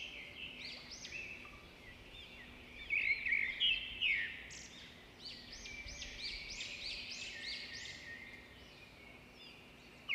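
Small birds chirping and twittering, many quick rising-and-falling notes overlapping, busiest around three to four seconds in, over a faint steady hum.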